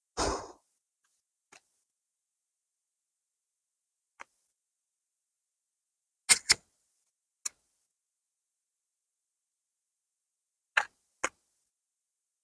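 Tarot cards handled and set down on a table: a short scuffling click right at the start, then scattered sharp clicks, two of them in quick pairs.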